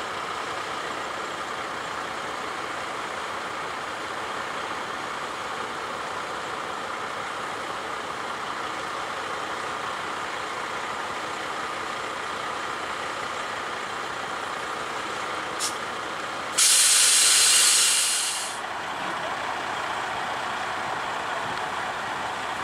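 A heavy vehicle's air brakes releasing: a sudden loud hiss of air about two-thirds of the way in, lasting about two seconds and tailing off, over a steady background noise.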